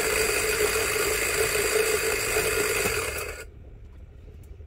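Electric coffee grinder running steadily under load, grinding a mix of seeds and grains including oily sesame seeds, which it struggles with a little. The motor switches off abruptly about three and a half seconds in.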